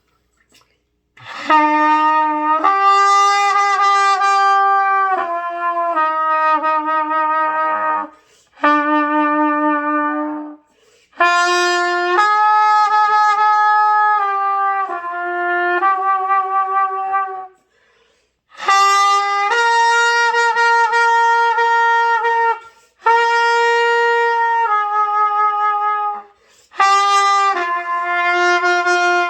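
Solo trumpet played by a beginner, a slow hymn melody in sustained notes grouped into phrases, with short breaks for breath between phrases.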